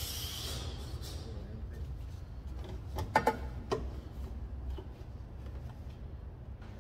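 A few sharp metallic knocks and clinks about three seconds in as an intake pipe is handled and fitted against parts in the engine bay, over a steady low hum, with a brief hiss at the start.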